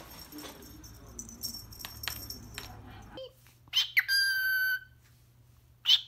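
Cockatiel whistling: a quick upward note runs into a long, steady, clear whistle of about a second, and a second rising whistle starts near the end. Before the whistles there are only faint rustles and light clicks.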